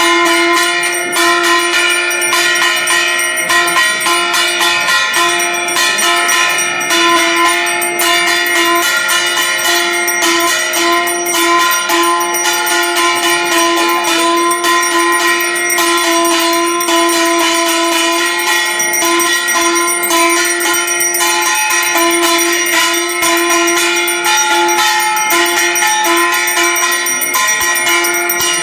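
Metal ritual bells rung rapidly and without a break, their many ringing tones sustained over a fast, even patter of strikes, as in the bell-ringing of a Hindu puja's aarti.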